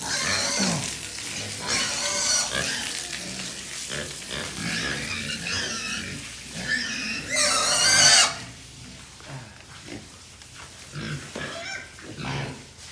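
Pigs squealing again and again, with the longest and loudest squeal about seven to eight seconds in, then quieter short grunts. These are young pigs in their pens, waiting to be fed.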